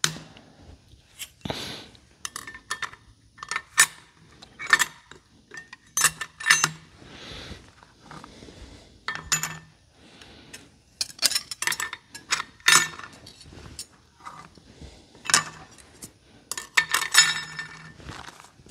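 Steel clutch plates and friction discs of an International 966 hydraulic PTO clutch pack clinking against each other and the clutch drum as they are handled and stacked in. Many separate sharp metal clinks, some ringing briefly.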